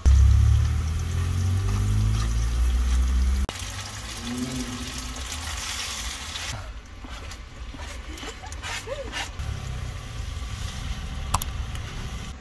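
Pan cooking: a sizzling hiss as spaghetti is lifted with tongs into hot oil with garlic and chilli, then scattered clicks of the tongs against the frying pan as it is tossed. A loud low rumble fills the first three seconds or so and stops abruptly.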